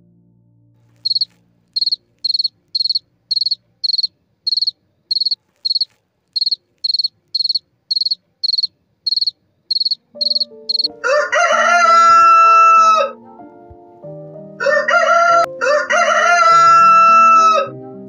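An insect chirps steadily in short high chirps, about two a second, for most of the first ten seconds. Then a rooster crows twice, each crow about two to three seconds long, over soft piano music.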